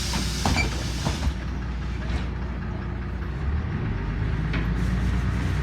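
Interior of a LiAZ 5292.21 city bus: a hiss of released air cuts off about a second in, with a few knocks, over the steady low running of the bus's engine, which grows slightly louder after about four seconds.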